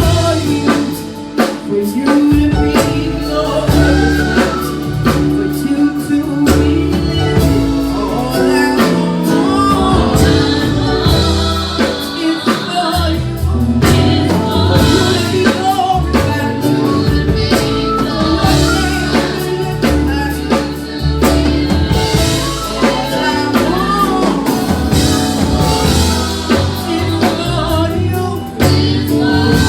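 Gospel worship music: singing over a live band with drum kit, bass and keyboard.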